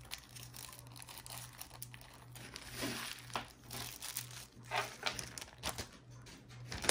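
Small plastic zip-lock baggies crinkling as they are handled and gathered up, in soft, uneven rustles.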